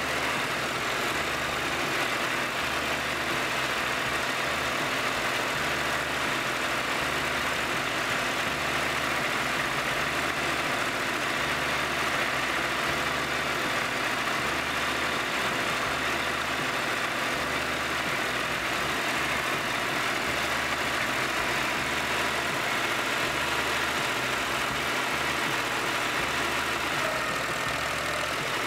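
Terraplane TD38 (Dongfeng) tractor's diesel engine running steadily as the tractor drives along, heard from the operator's seat.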